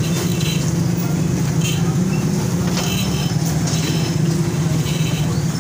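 Busy street traffic noise: a steady low engine hum from nearby vehicles, with scattered faint background sounds.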